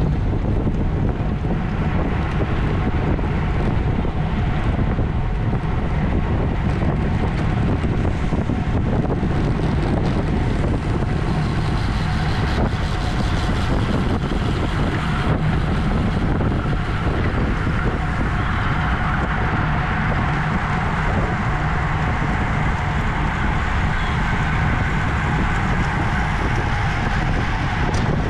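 Steady wind noise rushing over a bicycle-mounted camera's microphone at racing speed, with a continuous low rumble beneath.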